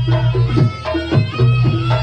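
Reog gamelan accompaniment playing: drum strokes and short ringing pitched percussion notes over a sustained low tone, in a steady repeating pattern.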